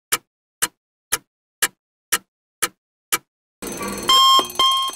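Clock-ticking sound effect, two sharp ticks a second, then an alarm clock ringing, with two short beeps near the end.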